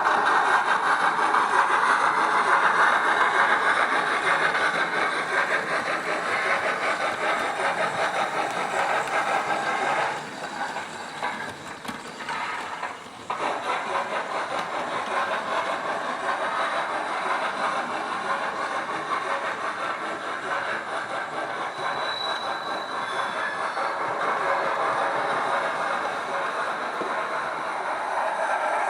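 Hornby LMS 8F model steam locomotive's LokSound v5 sound decoder playing steady steam-exhaust chuffing through a small speaker in the tender. The chuffing drops quieter for about three seconds around ten seconds in, then picks up again.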